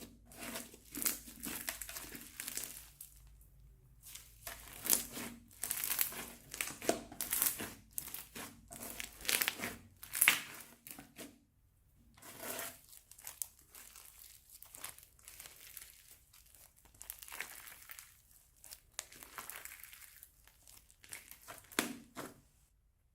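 Slime being worked in plastic piping bags: irregular crinkling of the plastic mixed with sticky squishing, coming in uneven bursts with two short lulls.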